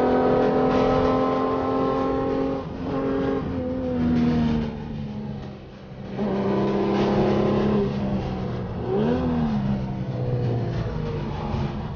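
Modified Alfa Romeo GTV6's 3.0-litre V6 with free-flow exhaust, heard from inside the cabin on track. It pulls under power with slowly rising pitch, then the pitch falls and the sound drops away as it slows for a corner around three to five seconds in. It then pulls again, with a brief rise and fall in pitch about nine seconds in.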